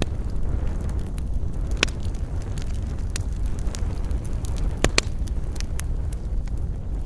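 Wood campfire crackling, with scattered sharp pops and snaps over a steady low rumble. Two louder pops stand out, one near two seconds in and another about five seconds in.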